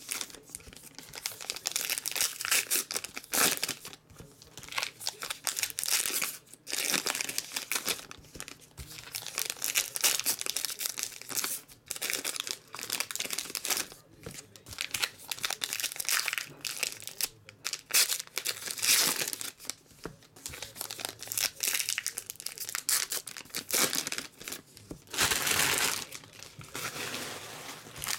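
2019 Topps Heritage baseball card pack wrappers being torn open and crinkled by hand, in repeated bursts of crackling separated by short pauses.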